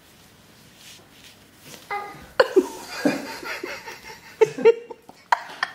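Quiet for about two seconds, then laughter in short, broken bursts.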